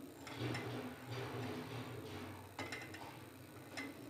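Long-handled spatula stirring thick milk payasam in a steel pot, its edge knocking and scraping against the pot in a few irregular light clicks over a low hum.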